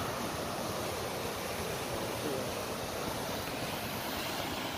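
Rough sea surf churning and washing, a steady rushing noise with no distinct crashes.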